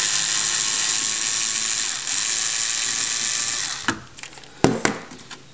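A Bosch cordless electric screwdriver runs steadily as it backs a screw out of the back of a TRS-80 Model III's case, then stops a little before four seconds in. A couple of sharp clicks follow.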